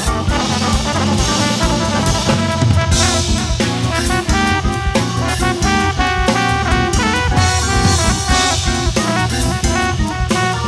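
Jazz organ trio playing: trombone lines over organ-sound keyboard and a busy drum kit.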